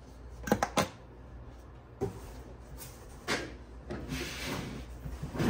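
A cardboard shipping box being handled as a lawn mower is lifted out of it. Two sharp clicks about half a second in, then a few knocks and a stretch of cardboard rubbing and scraping near the end.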